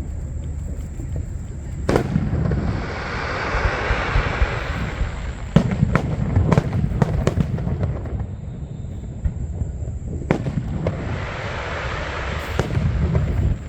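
Aerial fireworks bursting: a loud boom about two seconds in followed by a few seconds of crackling, a quick run of sharp bangs around six to seven seconds, then another boom and more crackling near the end.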